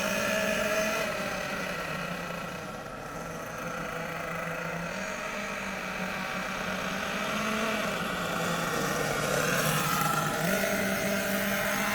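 Twin glow-fuel nitro engines of a HotBodies Lightning GTX2 RC truck running steadily, with a brief rise in pitch near the end.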